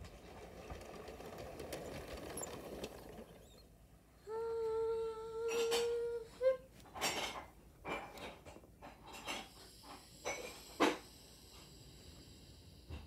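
Plastic LEGO train parts being handled: a string of short clicks and knocks in the second half. About four seconds in, a steady held tone lasts some two seconds and ends with a brief upward blip.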